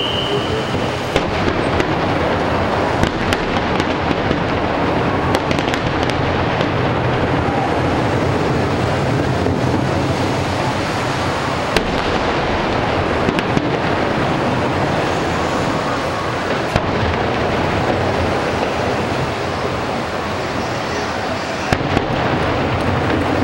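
Fireworks display: a continuous barrage of rumbling booms with many sharp cracks and pops scattered throughout.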